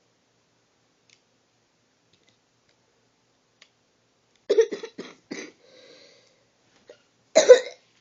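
A person coughing: a quick run of short coughs about halfway through, then one louder cough near the end, with near silence before them.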